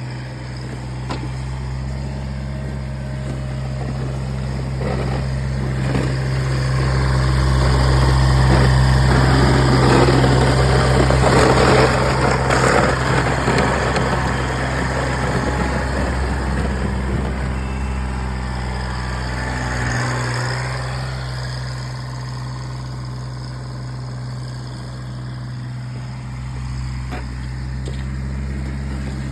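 Kubota BX1800 compact tractor's three-cylinder diesel engine running steadily. A louder rushing, scraping noise builds from about seven seconds in and fades out by about sixteen seconds.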